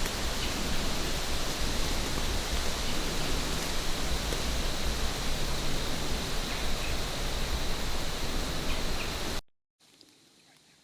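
Steady rushing outdoor noise with an uneven low rumble, which cuts off suddenly about nine and a half seconds in, leaving near silence.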